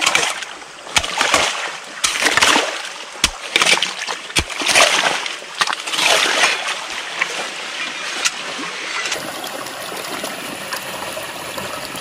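A shovel scooping and scraping wet mud in a shallow ditch of running muddy water, with splashes and a few dull knocks. About nine seconds in this gives way to the steady sound of water flowing down the ditch.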